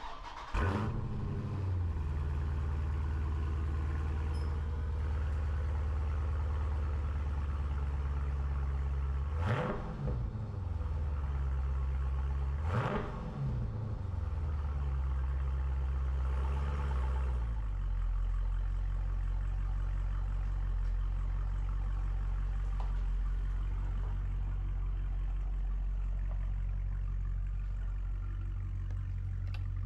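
Dodge Challenger engine starting up and running at a fast idle. It is revved twice, about ten and thirteen seconds in, then settles to a lower steady idle a few seconds later.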